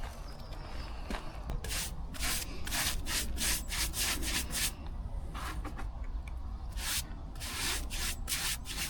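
Short scratchy strokes in an irregular run, about two or three a second, of end-grain sealer being worked onto the cut end of a spalted beech log, sealing it so the wood does not dry too fast and crack.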